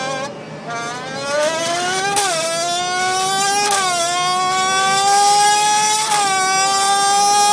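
Car exhaust fitted with a Red Bull can, giving a loud high whine that climbs in pitch as the car accelerates. The pitch drops back three times, about two, four and six seconds in, like upshifts, in imitation of a Formula 1 engine.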